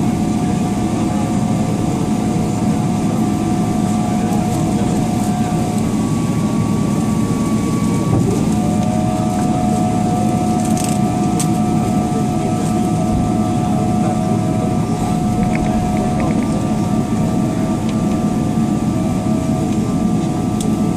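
Inside the cabin of a Boeing 777 taxiing, its GE90 engines running at low power: a steady low rumble with a thin, steady engine whine over it. The whine's pitch drops out and comes back slightly lower about eight seconds in.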